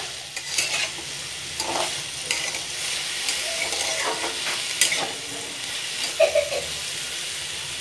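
Potatoes, peas, sem beans and chillies sizzling in oil in a metal kadai while a flat metal spatula stirs them, scraping and clinking against the pan several times over a steady frying hiss.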